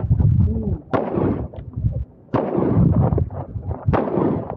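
Handgun shots fired in a practical-shooting stage, sharp cracks with the reverberant boom of the range between them, the clearest about a second in, near the middle and near the end.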